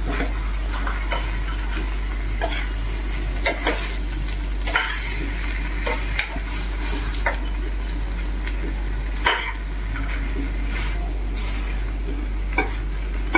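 A steel spoon stirring boiled potatoes and peanuts in a stainless steel pan, with irregular scrapes and clinks against the metal. Underneath runs a steady sizzle of the mixture frying in ghee.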